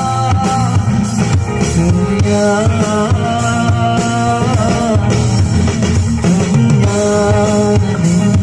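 Live rock band playing a Bengali song through a stage PA: electric guitar, keyboard and drum kit, with a melody line of long held, bending notes over the steady accompaniment.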